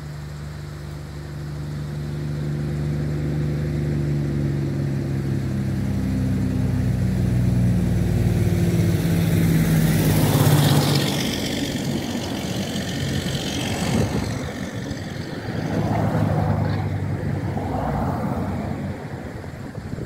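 A motor vehicle passing: its engine hum grows steadily louder, peaks with a rush of tyre and road noise about halfway through, then fades. A second, smaller swell comes near the end.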